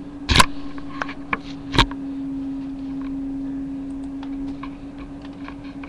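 Knocks and clicks from handling close to the webcam's microphone, two sharp ones about half a second and two seconds in, then lighter ticks, over a steady low hum.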